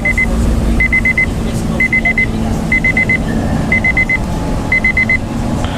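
Midland HH54 weather radio sounding its alert beep during a test activation: quick sets of four high beeps, about one set a second, over a steady low background rumble.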